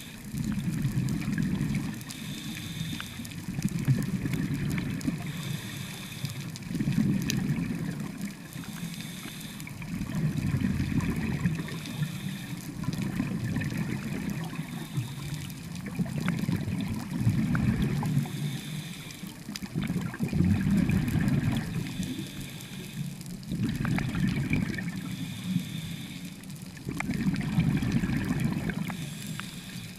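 Scuba diver breathing through a regulator underwater. Each inhale gives a short hiss through the demand valve, and each exhale a burst of bubbling exhaust bubbles, about eight breaths in a steady rhythm.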